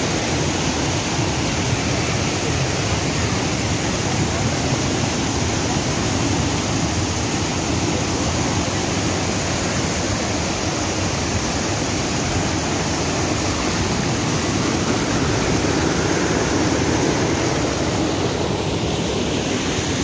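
River water pouring over granite boulders in a small waterfall and rapids: a steady rush of white water.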